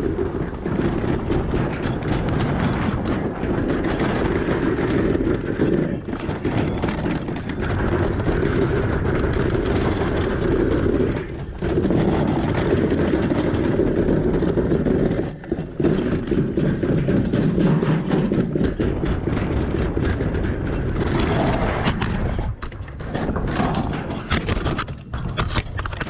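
Toboggan sled running at speed down a stainless-steel chute, a loud continuous rumble with constant rattling, broken by brief drops about eleven, fifteen and twenty-two seconds in. Near the end the rumble thins into scattered knocks as the rider comes off the sled.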